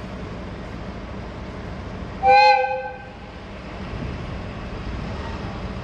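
One short, loud blast of a railway horn from the train delivering new Sotetsu 12000-series cars, sounded as a warning at a level crossing without barriers. It comes about two seconds in, over a steady low rumble.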